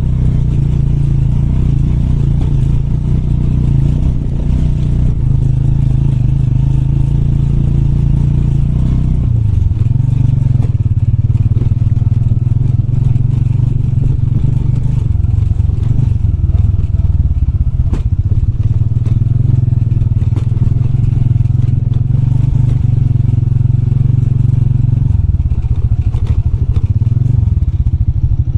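Motorbike engine running steadily under a rider on an off-road trail, its pitch dropping and shifting about a third of the way in and again near the end as the throttle or gear changes.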